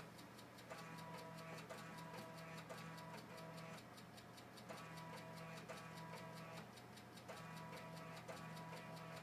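Old computer running faintly: a steady mechanical ticking, about four ticks a second, over a low hum, with tones that cut in and out about once a second.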